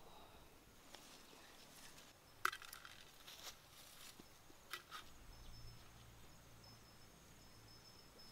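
Near-silent outdoor quiet broken by a few light, sharp taps, the loudest about two and a half seconds in. From about five seconds in, a faint high insect trill comes and goes.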